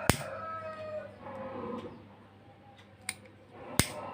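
A lighter being clicked to light it: two sharp clicks, one near the start and one near the end, with a fainter click just before the second.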